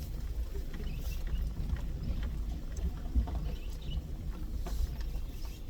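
Car cabin noise while driving: a steady low road and engine rumble with a few faint clicks and rattles.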